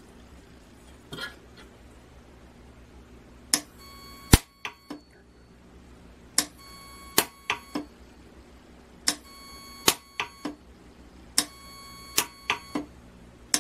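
Orion 100C micro-arc welder firing a series of tack welds up a seam in titanium 6-4 plates, 16 joules per weld, in touch-detect mode where each touch of the electrode sets off a discharge: sharp snaps in quick groups of three or four, a second or two between groups. A faint high steady tone sounds during each group.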